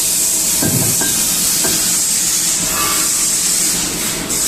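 CNC turning machine running with a steady, loud hiss, and a brief low thump just under a second in.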